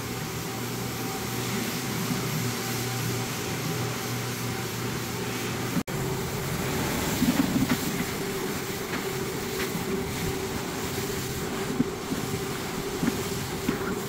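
Rotary floor machine running steadily, its spinning pad scrubbing wet stripping solution into a hardwood floor to cut through layers of built-up wax. It is a constant machine hum that breaks off for an instant about six seconds in.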